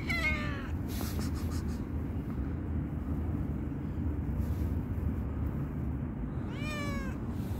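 Tuxedo cat meowing twice: one short meow right at the start and a second, falling meow near the end, over a steady low rumble.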